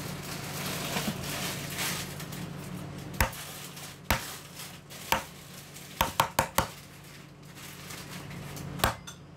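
Hands handling and opening toy packaging: rustling at first, then a run of sharp clicks and taps, several in quick succession, over a low steady hum.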